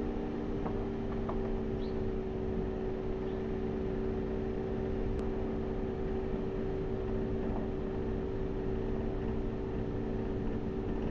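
Steady mechanical hum of a motor running at an unchanging speed, a few even tones over a low rush of noise.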